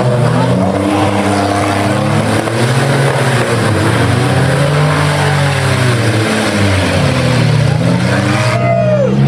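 Several six-cylinder demolition derby car engines revving up and down at once as the cars push against each other in the mud.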